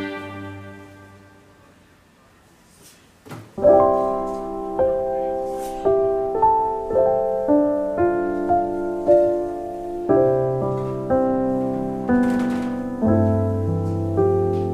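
Slow, gentle piano music: a held chord dies away, then after a short pause a new melody begins about three and a half seconds in, with notes struck about twice a second.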